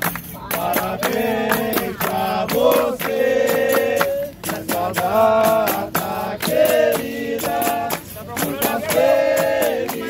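Capoeira roda music: a group of voices singing a chant together, with steady rhythmic handclapping and percussion.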